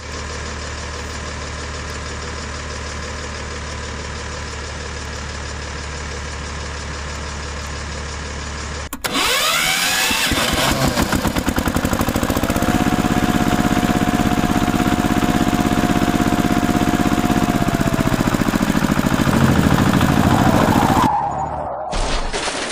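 Tractor engine sound effect: a steady idling hum, then about nine seconds in a louder engine starts with a rising whine, runs at a steady pitch, and dies away near the end.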